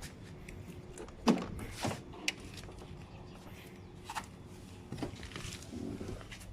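A steady low hum with several sharp knocks and clicks over it, the loudest just over a second in.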